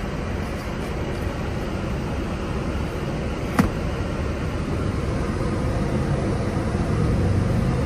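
Steady road and engine noise inside the cabin of a moving 15-passenger van, with a single short click about three and a half seconds in.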